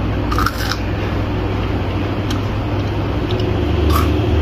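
Flamin' Hot Cheetos crunching as they are chewed, two short crunches about half a second in and near the end, over a steady low background hum.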